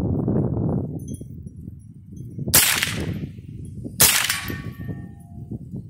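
Two shots from a Smith & Wesson M&P 15-22, a .22 LR semi-automatic rifle: sharp cracks about a second and a half apart, each with a short echoing tail.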